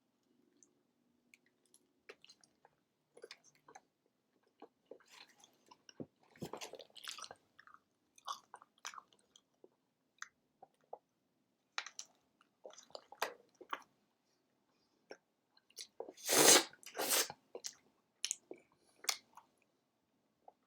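Close-up chewing of a mouthful of bacon cheeseburger: scattered wet mouth clicks and smacks, with a louder burst of noise about sixteen and a half seconds in.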